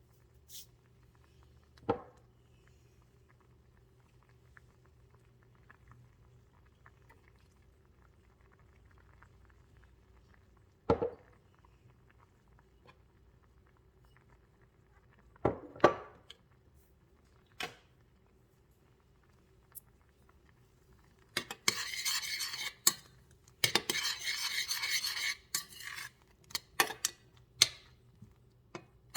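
Cutlery knocking against dishes: a few separate clinks, then a run of several seconds of quick scraping and clinking about three-quarters of the way in, over a faint steady hum.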